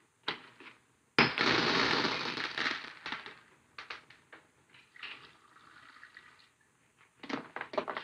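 Running water that starts suddenly about a second in and tails off after about two seconds, followed by light clicks and knocks of glass and small objects, with another cluster near the end.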